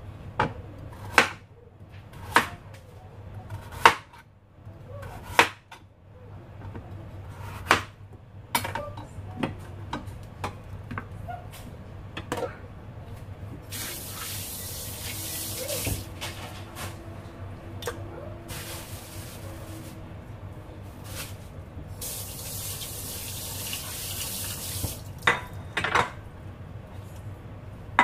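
Sharp knocks of a kitchen knife cutting on a cutting board, about one a second; later a kitchen tap runs twice, briefly each time.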